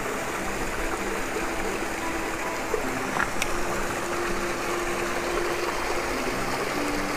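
Shallow mountain stream running and trickling over rocks and stones in a steady, even rush of water.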